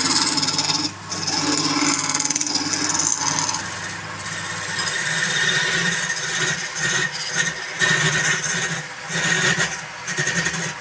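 Wood lathe running while a turning tool scrapes against the spinning wood. A steady low hum drops out about halfway, and the scraping then comes in uneven bursts.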